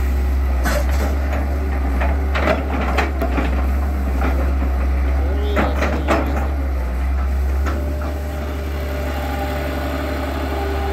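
Excavator's diesel engine running steadily while it digs. Several sharp clanks come in the first half and once more about six seconds in.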